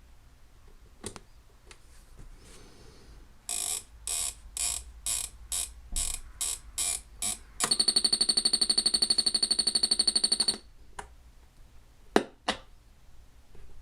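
Panasonic RC-6234 flip clock radio's alarm buzzer sounding a loud, steady buzz for about three seconds, then switched off with a few sharp clicks. Before the buzz comes a run of about nine short hissing bursts, a little over two a second.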